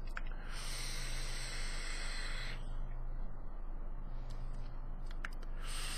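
Draw on a freshly dripped atomizer fired at 60 watts, 0.36 ohms: a hiss of air and vapour for about two seconds, then a quieter stretch with a couple of faint clicks, and the hiss starting again near the end.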